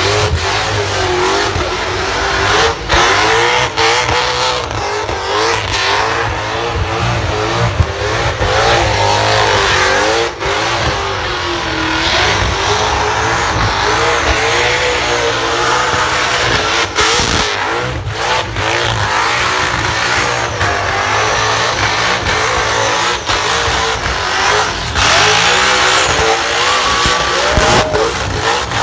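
Supercharged burnout car's engine held at high revs through a burnout, the engine note wavering up and down constantly as the rear tyres spin and squeal against the pad.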